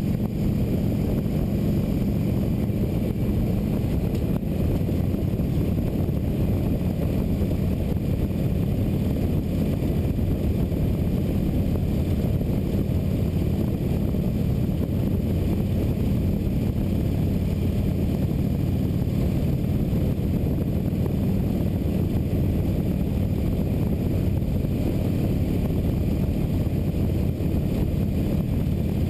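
Motorcycle engine running steadily at cruising speed, with rushing wind noise over it.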